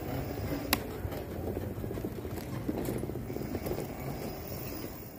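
Electric bicycle rolling over paving blocks and concrete: a steady low rumble from the tyres and frame, with light rattles and a sharp click about three-quarters of a second in.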